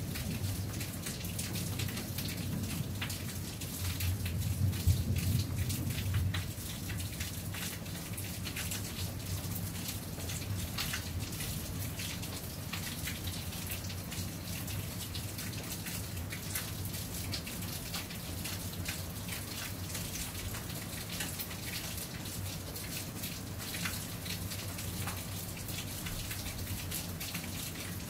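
Steady rain falling, with many separate drops ticking close by. A low rumble under it fades out about six seconds in.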